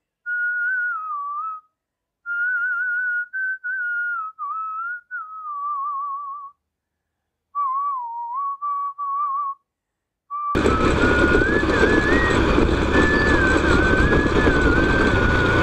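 A whistled melody: one person whistling a slow, wavering tune in short phrases with pauses between them. About ten seconds in, a loud rush of wind and road noise from a moving scooter cuts in suddenly, and the whistling carries on over it.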